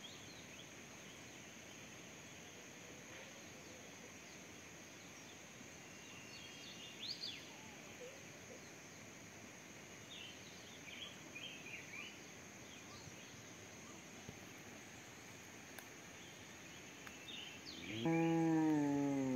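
Mithun lowing near the end: one long, loud moo falling in pitch. Under it runs a steady high insect drone, with scattered short bird chirps.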